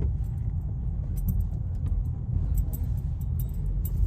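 Car running over a speed bump, heard from inside the cabin as a steady low road-and-engine rumble with faint light high clicks from about a second in. No metallic clunk stands out, consistent with the just-replaced stabilizer-bar links having cured the metal-on-metal knocking.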